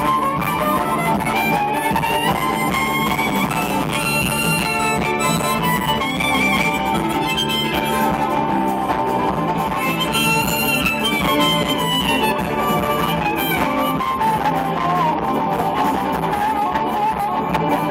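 Live band playing an instrumental tune, with harmonica and fiddle carrying the melody over bass and guitar. The lead lines sweep up and down in long runs.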